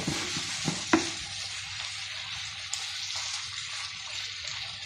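Onions, mushrooms and bacon sizzling steadily in a frying pan as a wooden spatula stirs them, with three sharp knocks of the spatula against the pan in the first second.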